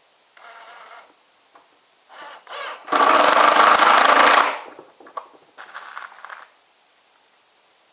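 Impact driver driving drywall screws into wood: a few short runs of the motor, then a loud burst of about a second and a half of impact hammering about three seconds in, and another short run near the end.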